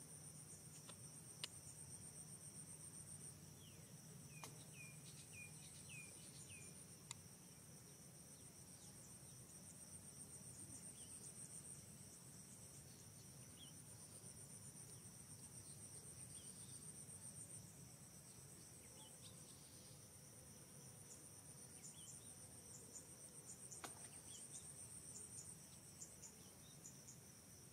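Faint, steady high-pitched insect chorus in two continuous pulsing bands, with a quick run of about five short falling chirps about four to seven seconds in.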